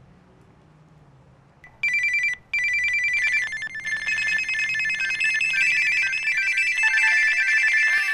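Telephone ringers trilling: after a couple of quiet seconds one electronic ring starts, pauses briefly, then goes on. More trilling rings at different pitches pile in until it is a loud overlapping din of phones ringing.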